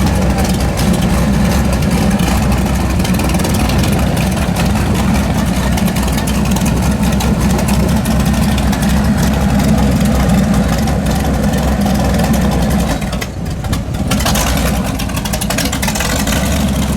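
Motorcycle engines running steadily, a loud low rumble that drops away briefly about thirteen seconds in.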